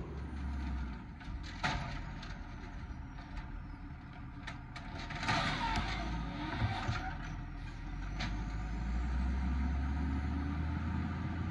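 Automated side-loader garbage truck emptying wheeled carts: several sharp knocks and a clatter as the lift arm tips the bins and sets them back down, over the low, steady running of the truck's engine, which grows louder near the end as the truck moves off.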